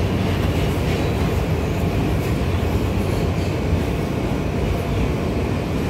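R160 subway car running along the track, heard from inside the car: a steady low rumble of wheels on rail.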